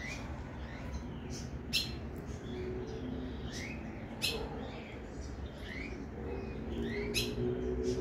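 Ultramarine grosbeak (azulão) giving short, sharp chirp calls, about one a second, over a low background hum. Faint low steady tones start to come in near the end.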